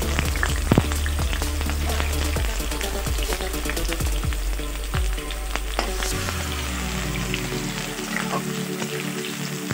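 Potato chunks sizzling in hot mustard oil in a karahi, with frequent sharp pops of spattering oil through the first several seconds. A metal spatula stirs them near the end.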